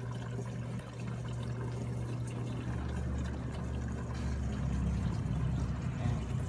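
Water pouring into the tub of a Samsung WA70H4400SS top-load washing machine through its inlet valve during the fill stage of a test cycle, with a steady low hum beneath it; the water entering shows the repaired washer's inlet valve is working.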